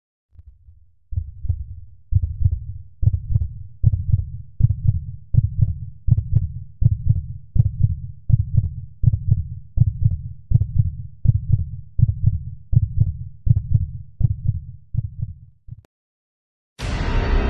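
Heartbeat sound effect: a steady rhythm of low, muffled thumps that starts about a second in and stops abruptly shortly before the end. A sudden loud burst of music cuts in near the end.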